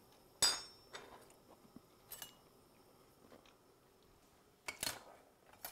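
Light clinks and knocks of kitchen utensils on a countertop. There is one short metallic clink with a brief ring about half a second in, a faint tick around two seconds, and a couple of knocks near the end.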